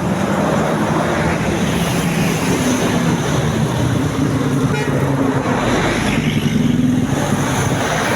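Tour bus's Basuri multi-tone 'telolet' horn sounding held notes that step up and down in pitch, over traffic noise.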